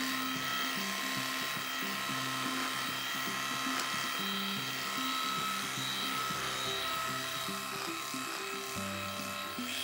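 Background music with a moving bass line, over the steady whine of an electric dog clipper with a long blade running through a Bouvier des Flandres' thick coat.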